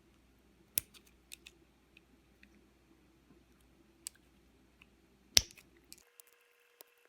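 Small clicks and taps of metal lock parts and tools being handled on a work surface while a milled-open Assa lock core is taken apart, with one sharp click about five seconds in. A low background hum cuts off near the end.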